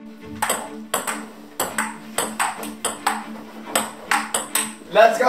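Table-tennis rally: the celluloid ball clicking sharply off paddles and the table, about a dozen hits at a quick, irregular pace of two to three a second.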